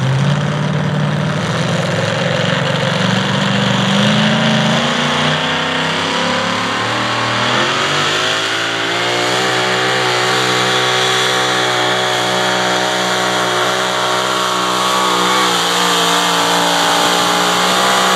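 Supercharged racing engine of a Pro Modified pulling tractor running at full throttle under load. Its pitch wavers at first, then climbs about halfway through and holds high and steady.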